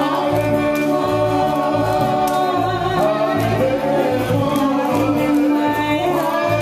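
Music with group singing over a steady low beat.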